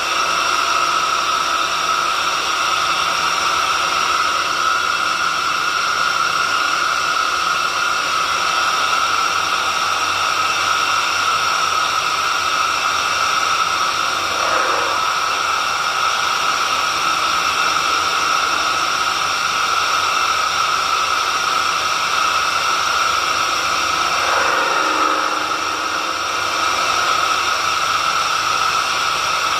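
Motor of a homemade horizontal drilling machine running steadily with a high whine, with two brief falling tones, one about halfway through and one near 25 seconds in.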